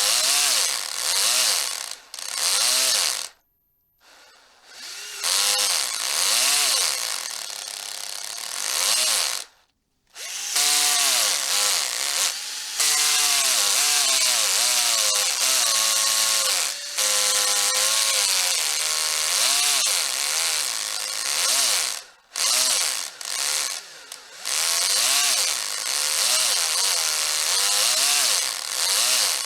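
Electric hammer drill running in long bursts, its motor whine rising and falling in pitch, stopping briefly about four, ten and twenty-two seconds in before starting again.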